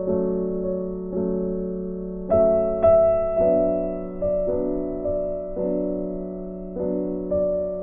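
Background music: soft electric piano chords, struck every second or so and left to fade.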